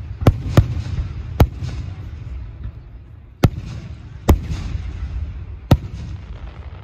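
Aerial fireworks shells bursting: six sharp bangs, irregularly spaced over about six seconds. Each bang is trailed by a fainter crackle, over a continuous low rumble.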